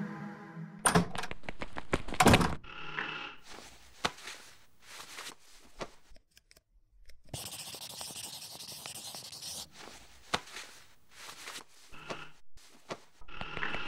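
A series of knocks and scrapes with a short burst of even rustling noise about halfway through. A piece of music cuts off just under a second in.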